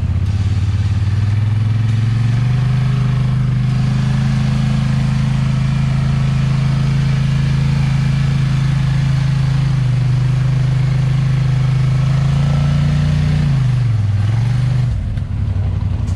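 Polaris ATV's twin-cylinder engine held at steady high revs under load as it works out of a deep mud hole on a winch line; the revs rise about two seconds in, drop briefly near the end and pick back up.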